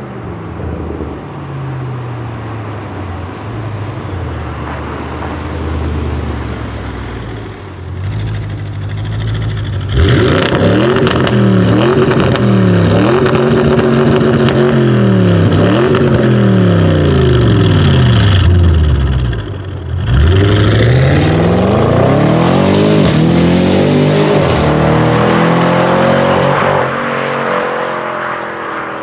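Audi RS6 Avant C7's twin-turbo V8 with a Milltek exhaust, running quietly at first. About a third of the way in it accelerates hard and loud, the revs climbing and dropping several times, with a few sharp pops. After a brief dip a second loud pull climbs in pitch, then fades.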